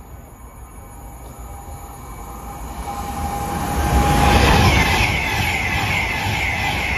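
Avanti West Coast Class 390 Pendolino electric train approaching and running through the station at speed. A rumble and rail hum builds over about four seconds and peaks as the front passes. Then comes the steady rush of the coaches going by, with a regular beat from the wheels.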